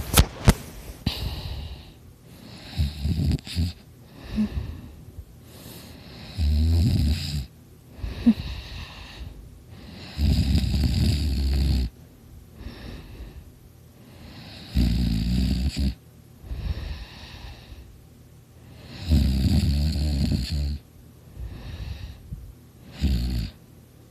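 A sleeping person snoring loudly: deep snores about a second to two long, coming roughly every four to five seconds, with softer breathing in between. A sharp click sounds right at the start.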